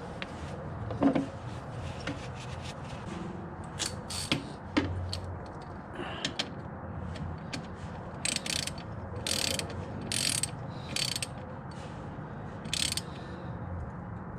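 Ratchet wrench clicking in short, uneven spurts as the oil drain bolt is run back into the ATV engine.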